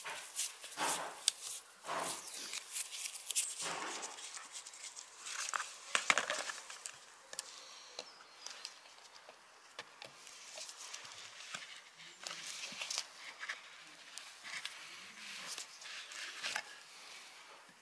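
Sharp metal clicks and scrapes from a screwdriver and pliers working on the metal band clamp of a CV joint's rubber boot on a driveshaft, as the clamp is pried and gripped off. The clicks come thick and loud for the first six seconds or so, then grow sparser and fainter.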